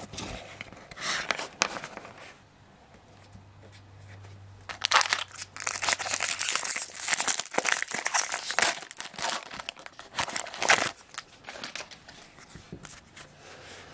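Foil wrapper of a Topps baseball card jumbo pack crinkling and tearing as it is ripped open by hand. A few light crinkles come first, then from about five seconds in a long stretch of loud crinkling and ripping that thins out near the end.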